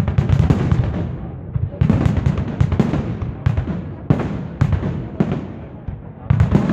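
Fireworks display: aerial shells bursting in clusters of sharp bangs, each fading into a low rolling rumble, with bursts about every one to two seconds.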